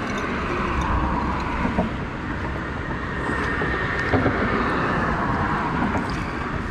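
Road traffic passing over the bridge: a steady tyre-and-engine rush that swells and slowly fades, with a few light knocks from the purse being handled.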